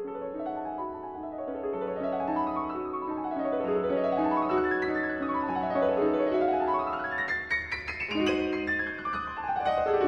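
Background piano music, its notes running up and down in quick arpeggios.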